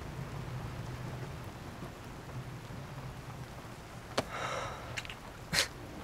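Steady ambient hiss over a low hum that fades away. About four seconds in comes a short breathy rustle, and a sharp click follows shortly before the end.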